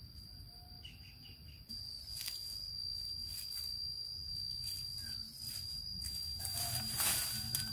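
An insect singing one steady, high-pitched note without a break. Near the end come louder rustles and footfalls in dry leaf litter.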